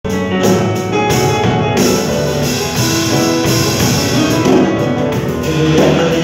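Live band playing an instrumental passage: acoustic guitar with upright double bass and drum kit.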